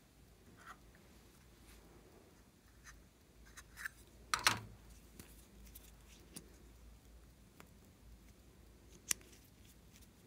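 Small plastic tube and its cap being handled: scattered light clicks and taps, with a louder clack about four and a half seconds in and a sharp click about nine seconds in.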